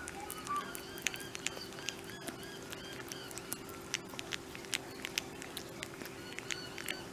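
A flying fox licking and chewing banana: a rapid, irregular run of small wet clicks and smacks from its tongue and lips. Faint high chirps and a steady low hum sit underneath.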